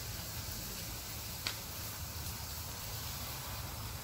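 Faint, steady background noise outdoors at night, with one sharp click about a second and a half in.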